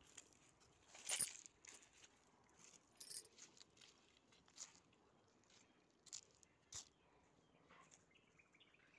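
Footsteps on dry fallen leaves and soil: a handful of separate crunches and clicks, spaced irregularly a second or so apart.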